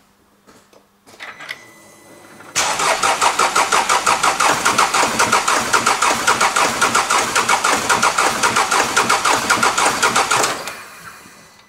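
Mercedes OM651 four-cylinder diesel turning over on its starter for about eight seconds with an even, rapid pulsing, without catching, then the cranking stops. It will not start with cylinder one's fuel injector unplugged, which the mechanic takes to mean that cylinder one and its injector are working.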